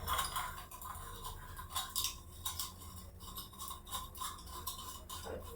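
LED bulb being screwed into a lamp socket by hand: faint scraping and irregular small clicks of plastic and metal threads turning.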